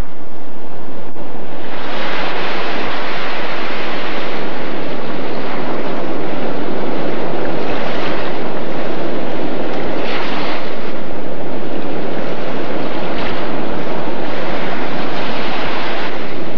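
Ocean surf breaking with wind, a loud steady rushing that comes up about two seconds in and then swells and eases as the waves break.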